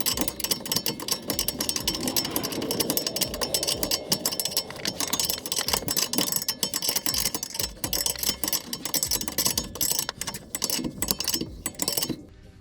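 Hand ratchet wrench clicking rapidly and steadily as it tightens the sway bar link nut onto a new rear strut. The nut runs down without the link's stud needing to be held. The clicking stops abruptly near the end.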